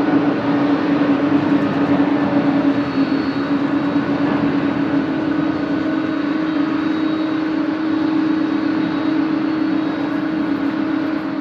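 Boeing 767-300ER's twin turbofan engines at takeoff thrust as the jet climbs away: a steady engine noise with a strong low hum, easing off slightly as it goes.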